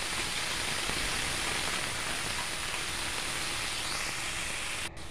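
Cut cluster beans sizzling steadily in hot oil in a steel kadhai as they are sautéed. The sizzle breaks off for an instant near the end and carries on a little quieter.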